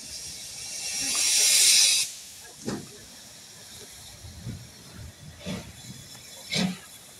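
Steam locomotive letting off a loud hiss of steam that builds over about two seconds and cuts off sharply, followed by a few short, softer bursts.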